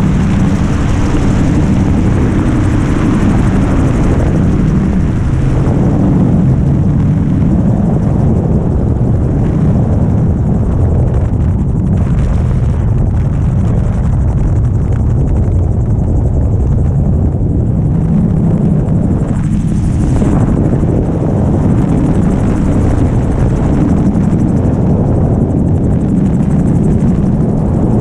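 Magni gyroplane's engine and pusher propeller running steadily in flight, a constant loud drone heard from the cockpit.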